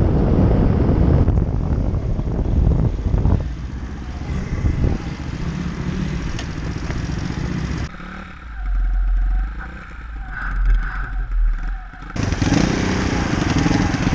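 Pit bike engine running under way, with wind noise buffeting the helmet-mounted microphone. For about four seconds past the middle the sound turns muffled and deep, then the brighter engine and wind noise returns.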